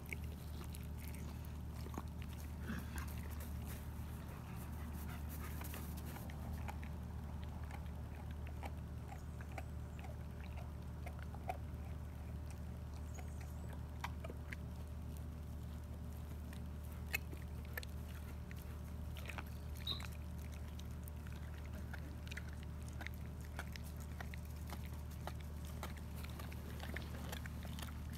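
German Shepherd chewing and crunching raw chicken bones: scattered sharp cracks and clicks every few seconds.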